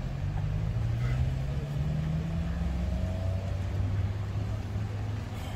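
Low rumble of a motor vehicle's engine, its pitch climbing slowly over the first three seconds as the vehicle speeds up, then holding steady.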